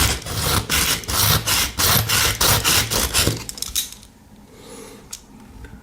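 A pocket knife blade is drawn quickly back and forth through the ceramic discs of a small handheld pull-through sharpener, making repeated rasping, scraping strokes. The strokes stop a little past halfway through.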